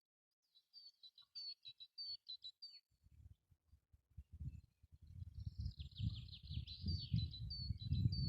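Bird chirping: quick series of short, high notes, pausing about three seconds in and then resuming faster. A low rumble starts about three seconds in and grows to be the loudest sound.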